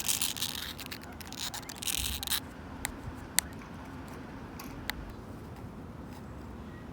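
Long fingernails scratching and clawing across a wooden bench for about two and a half seconds, followed by a few sharp separate clicks.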